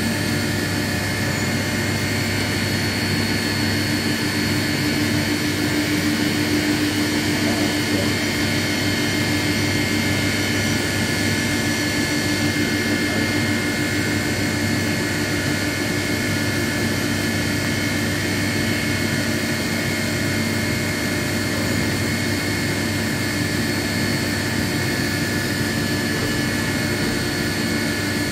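Haas TM-3 CNC mill running steadily through a cut: a constant machine hum with a few steady high whines, unchanged throughout.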